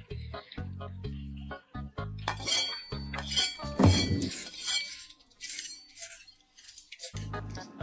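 Noodles being slurped, with spoon and chopsticks clinking against cup and plate, over background music with a steady bass beat. The music drops out about four and a half seconds in, leaving the slurping on its own, and comes back near the end.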